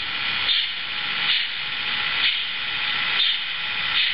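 ESU sound decoder in an HO-scale Roco BR 03.10 steam locomotive model, playing slow steam chuffs about once a second over a steady hiss through the model's loudspeaker.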